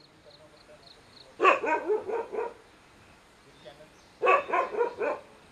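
A dog barking in two bursts of several quick barks, a little under three seconds apart.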